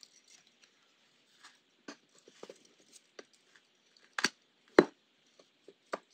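Small handling clicks and taps: tweezers and fingertips working a small circuit board on a tabletop while threading fine wire through its cores, with two louder knocks a little over four seconds in.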